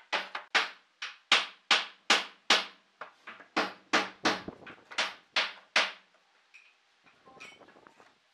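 A quick run of sharp wooden knocks, about two or three a second, as pine boards are set down and knocked against one another and the pipe clamps while they are laid out. The knocks stop about six seconds in, leaving faint handling sounds.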